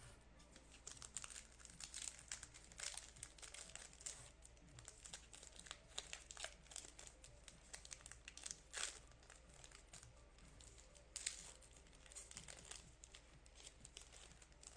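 A baseball card pack's wrapper being torn open and crinkled, with the cards handled, giving faint, irregular crackling and ticking.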